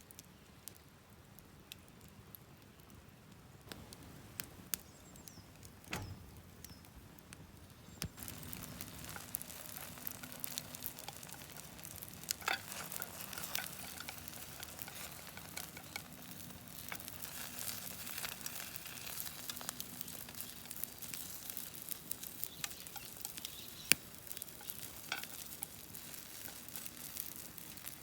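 Wood fire crackling and popping in a mesh fire pit. It is sparse at first and thickens into a dense crackle from about eight seconds in, with one sharp loud pop near the end.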